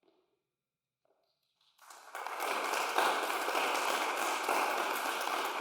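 A hush with a few faint small sounds, then audience applause breaking out about two seconds in: dense, steady clapping from many hands.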